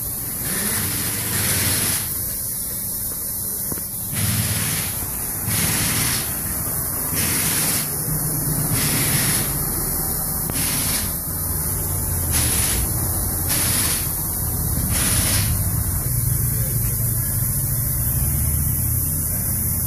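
Cadillac Northstar V8 running through a new exhaust with Flowmaster two-chamber mufflers and the resonator deleted, heard from under the car. It gives a deep, steady exhaust note that swells a little a few times.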